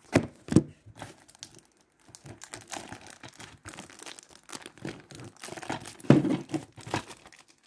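Plastic wrapping on a DVD case being crinkled and torn off by hand, in irregular crackles, with a couple of knocks from handling in the first second.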